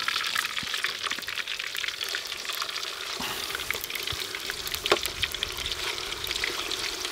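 Pieces of goose meat frying in hot goose fat in a cast kazan: a steady sizzle with crackling and a few sharp pops as the fatty pieces brown.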